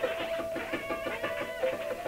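Free-improvised jazz: a dense tangle of quick plucked or struck notes over one steady, high held note.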